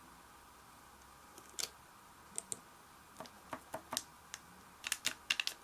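Faint, scattered light clicks and taps from small plastic toys and sticker sheets being handled, coming quicker near the end.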